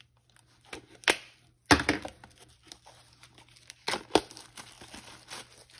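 Clear plastic packaging crinkling and tearing as it is cut with scissors and pulled open, in a run of sharp, uneven crackles. The loudest crackle comes just under two seconds in, with another pair about four seconds in.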